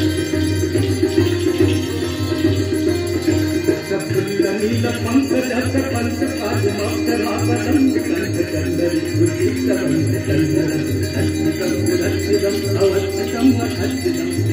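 Hand bells ringing continuously during a Ganga aarti, over devotional music with a steady beat.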